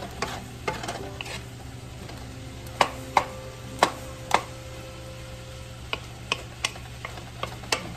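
Wooden spatula stirring shrimp and vegetables in a nonstick wok, scraping and knocking against the pan, with four sharp taps in the middle and lighter ones near the end, over a quiet sizzle of frying.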